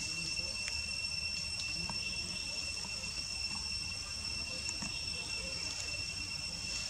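Steady high-pitched insect drone, two constant tones held without a break, over a low rumble, with a few faint clicks.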